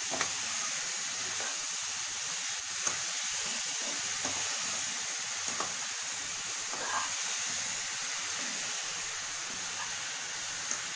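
Grated beetroot frying in oil in a kadai, a steady sizzle, with a steel spatula stirring and scraping it through the pan and a few light clinks of the spatula on the pan.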